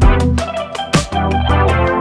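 Background electronic music: sustained organ-like keyboard chords over a steady drum beat of about two hits a second.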